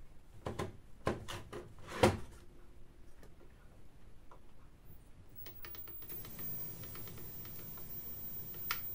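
A quick run of sharp plastic clicks as switches and buttons on the equipment are pressed, the loudest about two seconds in. From about five seconds in a low steady hiss and hum rises and holds, with one more click near the end.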